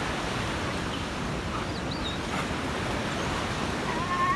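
Sea surf and wind rushing steadily, with wind buffeting the microphone. A brief high-pitched call rises near the end.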